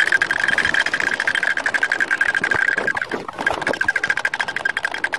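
Several mechanical drumming and walking toys running at once: a fast clatter of clicks from the plastic drums and gears, with a steady high tone under it that breaks off briefly about three seconds in.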